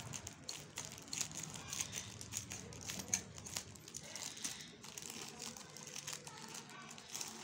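Plastic courier mailer bag crinkling and rustling in a steady run of irregular crackles as hands handle it and open it to pull out a garment in a clear plastic sleeve.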